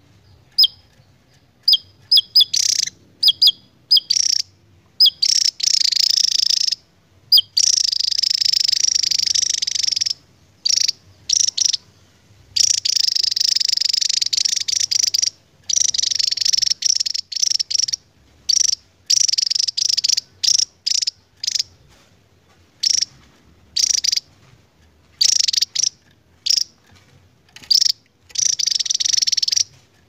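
Javan tesia singing: long high-pitched trills of two to three seconds each, broken up by short sharp notes.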